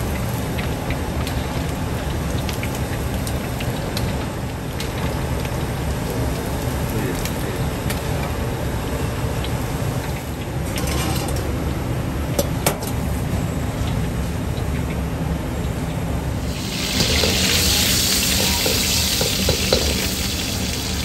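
Meatballs deep-frying in a wok of oil, a fine sizzle over a steady low rumble, with a few sharp metallic clicks of a metal skimmer against the wok. About seventeen seconds in, a much louder, bright sizzle of hot oil starts.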